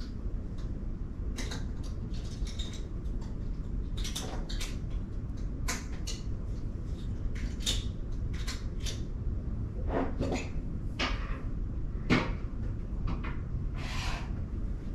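Irregular knocks, clicks and clatters of household activity out of view, with one sharper knock about twelve seconds in, over a steady low rumble.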